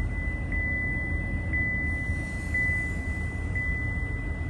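Inside the cabin of a Cadillac XT5, the engine idles and the climate blower runs, a low steady rumble. Over it a thin, high-pitched steady tone has a soft tick about once a second.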